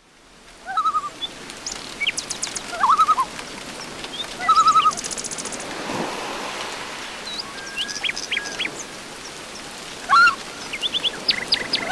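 A mix of wild bird calls: short quavering calls, quick high whistled notes, sweeping chirps and a fast buzzy trill, scattered through over a steady soft hiss.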